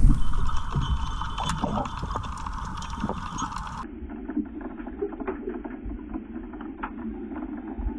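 Underwater sound picked up by a submerged GoPro: a low rumble of moving water with many scattered sharp clicks and crackles. About four seconds in, the sound turns abruptly duller.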